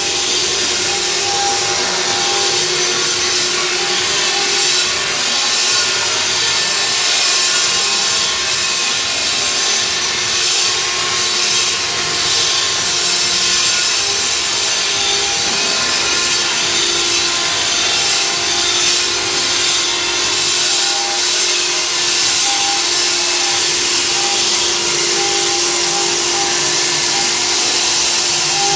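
Stone-carving CNC router running steadily: a constant spindle tone under a loud, even hiss of machining.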